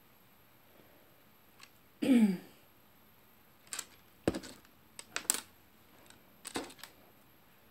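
Light, separate clicks and taps from handling beaded lace trim on a wooden tabletop, about half a dozen spread through the second half. About two seconds in comes a brief vocal sound, a short 'mm' falling in pitch, the loudest thing here.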